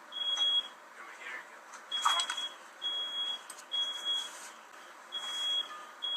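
Smoke alarm sounding its high beeps in groups of three, with a longer pause between groups: the alarm has been set off by smoke from fireworks let off indoors. A few faint crackles come about two seconds in.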